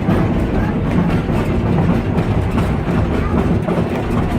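A train running, a steady loud rumble with many small clicks over it.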